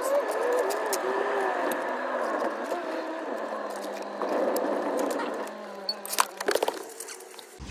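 Labrador retriever whining in a moving car's cabin, a wavering high whine rising at the start, over steady road noise. A few sharp clicks and rattles come near the end.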